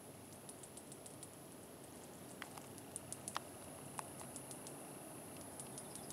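Faint outdoor ambience: a quiet low rumble that grows slightly louder, with scattered small ticks and a few sharper clicks in the middle.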